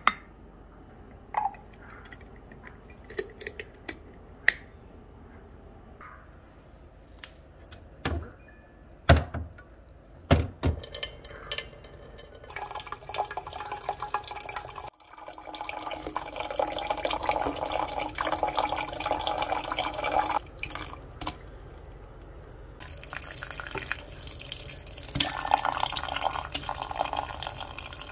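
A few sharp knocks and clinks of kitchenware, then hot water running into a container in two long pours, the second starting about 23 s in, as lemon water is made.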